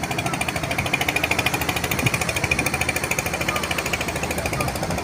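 Small engine running steadily with a rapid, even chugging, driving the rope winch used to haul fishing boats up the beach.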